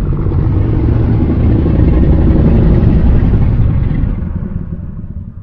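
Designed sound-effect call for an Indricotherium: one long, low, rough bellow that swells and then fades away near the end.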